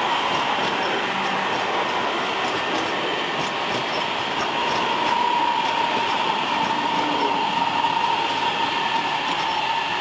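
CSR electric multiple-unit passenger train passing close by: a loud, steady rush of wheels on rail with a steady high tone running through it.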